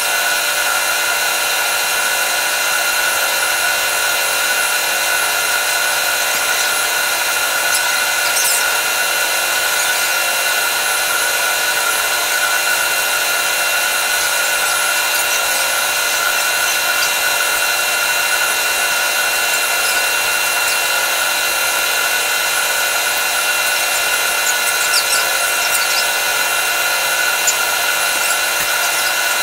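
Machinery running with a steady, unchanging whine made of many fixed tones, with a few faint clicks over it.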